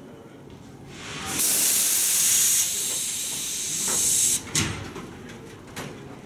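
Compressed air hissing loudly from a passenger train's air brake system, starting about a second in and lasting about three seconds, followed by a single short sharp knock.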